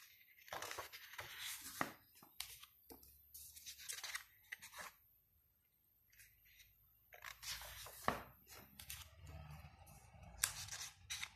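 Pages of a large hardcover photobook being turned by hand: faint paper rustles and swishes, with a short quiet gap about halfway through.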